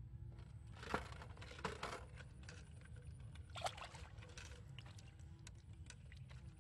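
A plastic-net fish trap with PVC pipe funnels being handled: the netting rustles and the pipes knock, with the sharpest knocks about a second in and again near four seconds. A steady low rumble runs underneath.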